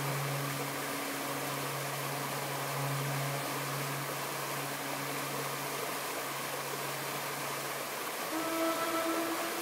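Alto saxophone holding a long low note, broken by a few brief breaths, over the steady rush of a shallow stream. About eight seconds in the low note stops and a higher held note begins.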